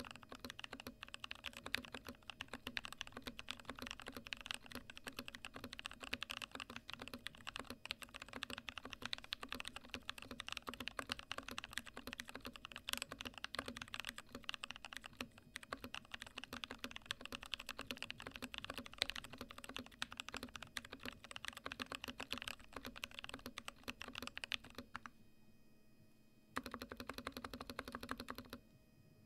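Typing on an NK65 Entry Edition mechanical keyboard in a clear polycarbonate case, fitted with 62 g Koala tactile switches lubed with Krytox 205g0 and band-aid-modded, lubed stabilizers: a fast, steady run of keystroke clacks. It pauses for about a second and a half near the end, resumes briefly, then stops.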